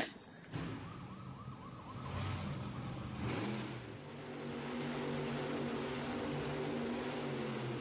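Monster truck engine running, faint, its pitch lifting about three seconds in and then holding a steady drone.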